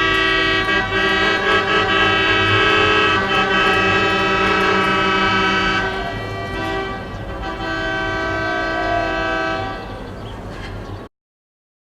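Several car horns honking at once in long, overlapping held blasts, with a low rumble underneath. The densest blaring eases about six seconds in, fewer horns carry on for a few seconds more, and the sound cuts off suddenly near the end.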